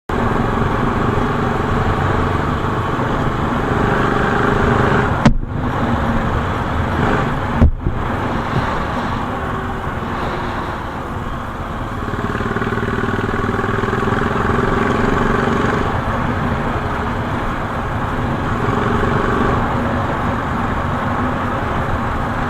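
Royal Enfield motorcycle on the move: steady engine and road noise, with two sharp knocks about five and eight seconds in.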